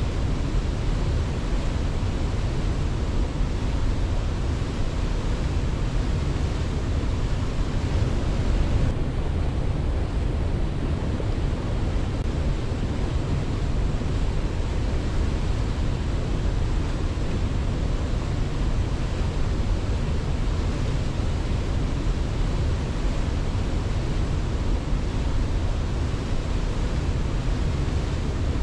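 Waterfall rushing steadily: an even wash of water noise, heaviest in the low end, with no birdsong or other events over it.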